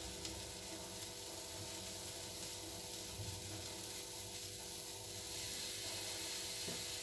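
Faint steady hiss from a gas stove where a paratha cooks on a tawa over a medium flame, with a low steady hum underneath.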